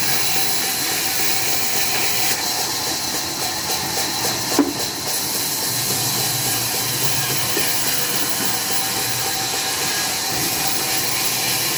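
Steady hissing noise, strongest in the high end, with one short knock about four and a half seconds in.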